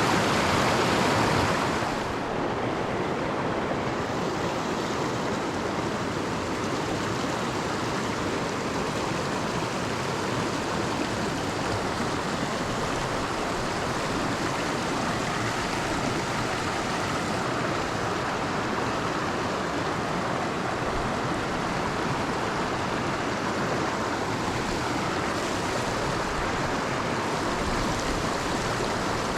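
Mountain stream rushing over rocks, a steady noise of moving water that drops slightly in level about two seconds in.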